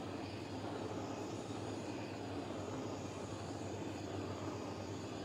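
Iwatani butane torch flame hissing steadily, turned up to a higher heat while fusing a beeswax encaustic layer.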